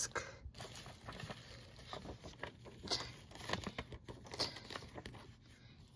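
Faint handling noises: a paper digital-code insert rustling, with light clicks and taps from a plastic Blu-ray case.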